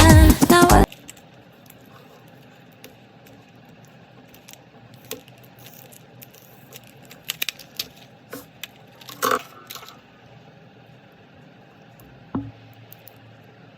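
Background pop music cuts off about a second in. Then come scattered small clicks and taps of a mechanical pencil and its packaging being handled, with a brighter ringing clink about nine seconds in and a dull thump about twelve seconds in.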